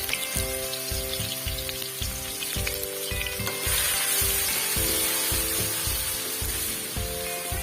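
Food sizzling in hot oil in a frying pan; the sizzle gets louder about halfway through. Background music with a steady beat plays under it.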